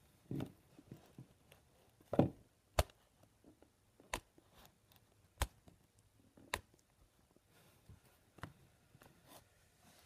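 Nintendo 3DS being handled and operated: a dull knock about two seconds in, then a string of sharp clicks a second or so apart.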